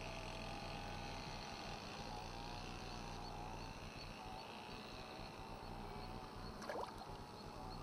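Quiet outdoor ambience at the water's edge: a steady low hum under faint, wavering thin chirps, with one brief gliding call about seven seconds in.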